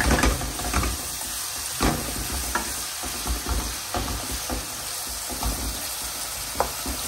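Sliced onions and garlic sizzling in hot oil in a large metal pot while a wooden spoon stirs them, scraping and knocking against the pot now and then, with a sharper knock about two seconds in.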